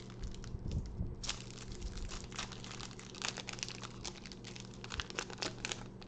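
Foil Pokémon booster-pack wrapper crinkling and tearing as it is worked open, a tough pack that resists. Quieter for about the first second, then dense crinkling.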